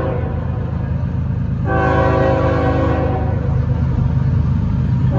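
Norfolk Southern freight locomotive's air horn blowing for a grade crossing. One blast ends just as the sound begins, a second runs for about a second and a half from a little under two seconds in, and a third starts right at the end, over a steady low rumble from the approaching train.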